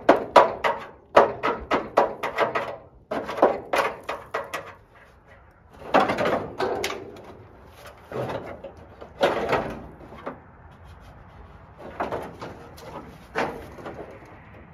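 A wrench working loose the last bolt of a Toyota FJ60 front fender: three bursts of sharp metallic clicks, about five a second. After that come several louder scraping and clunking sounds as the loosened steel fender is worked away from the body.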